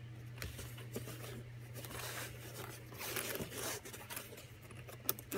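Zipper on a fabric-covered hard headphone travel case being drawn open: a run of rasping scrapes, louder about three seconds in, over a steady low hum.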